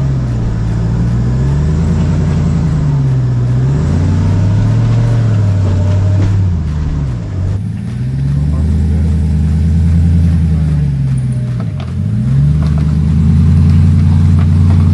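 Ram 1500 TRX's supercharged 6.2-litre V8 working under load as the truck crawls over rocks, its pitch rising and falling repeatedly with throttle, dropping low twice in the second half before climbing again.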